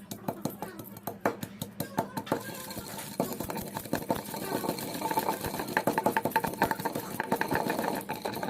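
Rice-flour and lentil dough being mixed by hand in a bowl: rapid, repeated knocking and rubbing strokes that become dense and continuous after about two seconds.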